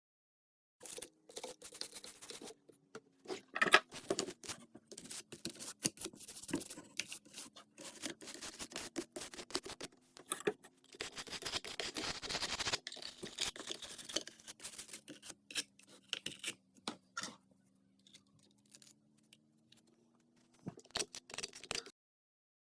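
Irregular scratching, scraping and clicking of an RC car being brushed and handled for cleaning, with a denser stretch of scrubbing about halfway through and a faint low hum underneath.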